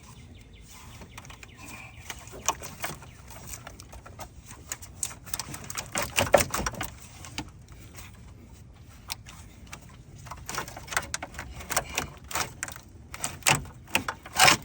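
Hand tools working on car parts: irregular metallic clicks and knocks, coming thicker and louder in the last few seconds.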